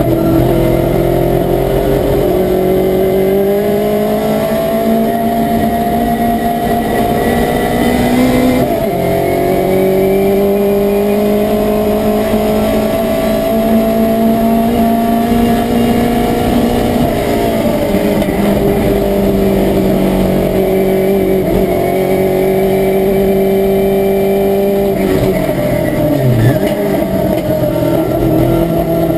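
Race-prepared Ford Cortina's engine at full throttle, heard inside the stripped cabin, its pitch climbing steadily through the revs. There is a sudden drop in pitch about 8 s in, and a deep dip and recovery near the end, as the car goes through gear changes and lifts off for a corner.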